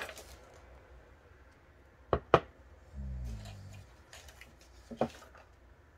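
A lidded glass mason jar set down on a wooden desk: two sharp knocks in quick succession about two seconds in, then a short low rumble, and a softer knock near the end.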